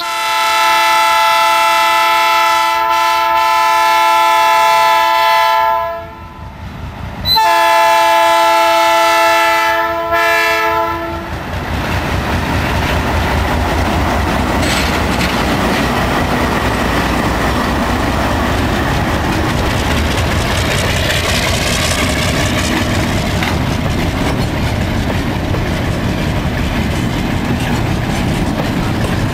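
ALCo RSD16 diesel locomotive's multi-tone horn blowing two long blasts, the first about six seconds long and the second about three and a half, with a brief pause between. From about eleven seconds in, the locomotive runs past close by and the train of container wagons follows, rumbling and clattering over the rails.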